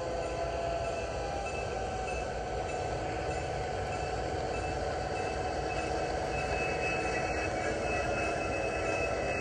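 HO scale model train running: a steady low rumble with a thin high squeal that grows stronger in the second half.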